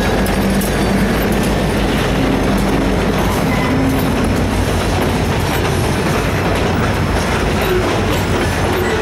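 Loaded covered hopper cars of a freight train rolling past close by: a loud, steady rumble of steel wheels on the rails.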